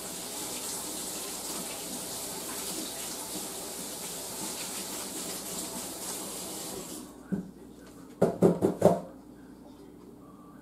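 Kitchen tap running steadily while hands are washed, shut off about seven seconds in. A knock follows, then a quick run of about four louder knocks.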